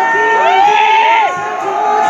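A concert crowd cheering and shouting, many voices at once. The cheering swells about half a second in and drops a little just past the middle.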